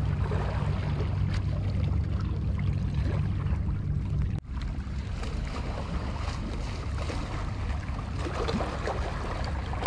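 Steady low rumble of seaside ambience: wind on the microphone and sea water washing against the rocks of a breakwater. There is a brief dropout about four and a half seconds in.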